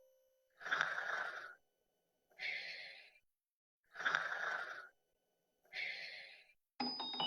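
Slow, audible human breathing: four drawn-out breaths of about a second each with silent pauses between. Near the end a chiming, glockenspiel-like melody comes in.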